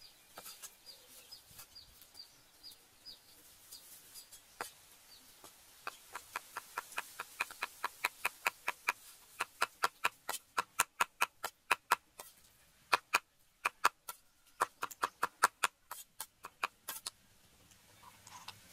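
Cleaver chopping raw pork into mince on a wooden chopping block: rapid, even knocks several times a second, getting louder about a third of the way in, with two short pauses, and stopping about a second and a half before the end.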